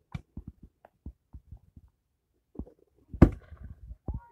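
Fireworks going off, heard as irregular light pops and thuds with one louder bang about three seconds in.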